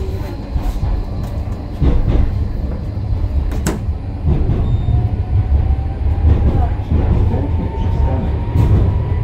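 Tram pulling away from a stop and gathering speed: a steady low rumble of wheels on rails, with a faint whine rising in pitch from about halfway through. A single sharp click a little over three and a half seconds in.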